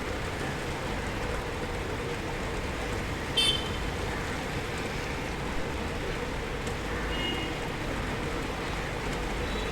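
Steady rain heard from indoors, a continuous even hiss with a low rumble beneath. A short high-pitched chirp sounds about three and a half seconds in, the loudest moment, with a fainter one about seven seconds in.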